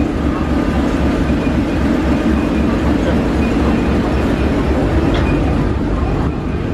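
A ferry's engine rumbling steadily underfoot, heard on its lower deck, with a low, even throb.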